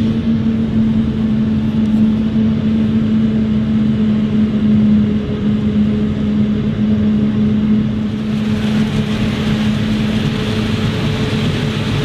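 Claas Jaguar 950 forage harvester chopping maize, with a Fendt tractor pulling a silage trailer alongside: a loud, steady machine drone with a constant pitched hum. A brighter rushing hiss grows louder about eight seconds in.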